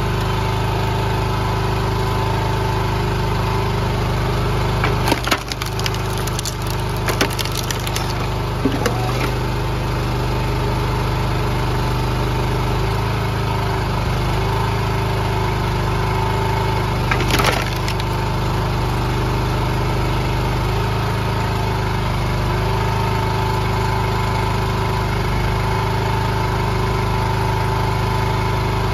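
Small petrol engine of a hydraulic log splitter running steadily while the wedge splits a western hemlock round, the wood cracking and splintering in a cluster about five to nine seconds in and again briefly around seventeen seconds.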